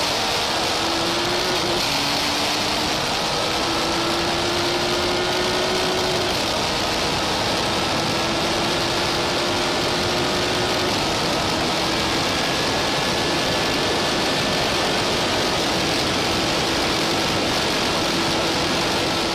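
Car accelerating hard through its gears on a standing-mile run, heard from inside the cabin. The engine's pitch climbs slowly and drops back at each upshift, three times, under a steady rush of wind and road noise.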